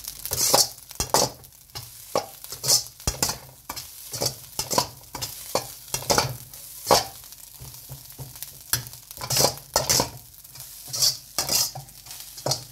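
Metal ladle scraping and tossing rice in a hot steel wok, in repeated strokes about once a second, with the rice frying and sizzling. This frying sound is the sign that the rice is frying nicely.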